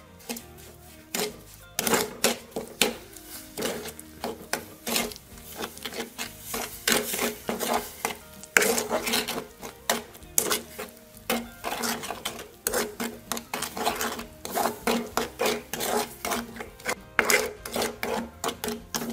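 A ladle scraping against a clay pot as it stirs sugar into a thick date and chilli paste, in quick, uneven strokes.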